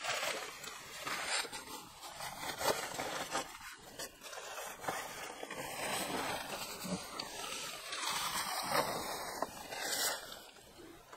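A dog panting and sniffing.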